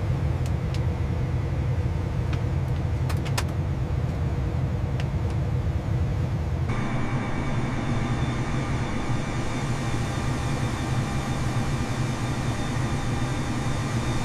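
Jet airliner engine noise in the climb: a steady rumble and hiss. About seven seconds in, the sound changes abruptly to a brighter hiss with a steady whine.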